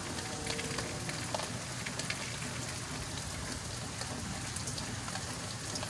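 Steady rain falling in a thunderstorm, an even hiss dotted with sharp ticks of drops striking nearby surfaces.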